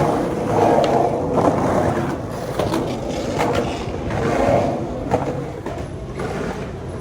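Skateboard wheels rolling on pavement, a steady rumble with a couple of sharp clacks from the board.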